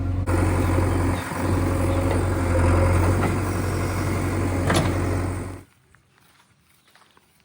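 Heavy diesel engine running steadily with a deep low hum, then stopping abruptly about five and a half seconds in.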